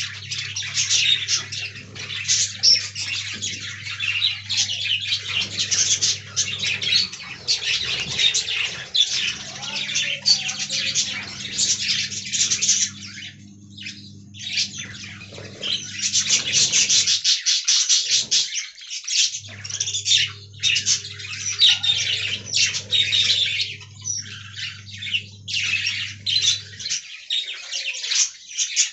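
Budgerigars chattering and warbling: a dense stream of quick chirps and squawks, with a short lull about halfway through. A steady low hum runs underneath for long stretches.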